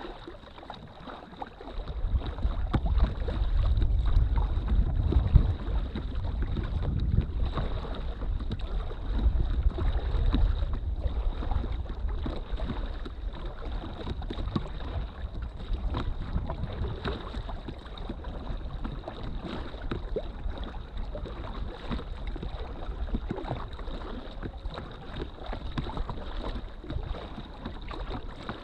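Wind buffeting the camera's microphone, starting about two seconds in and strongest soon after, over water splashing and lapping against the hull of an inflatable drop-stitch kayak under way. A faint steady high tone runs underneath.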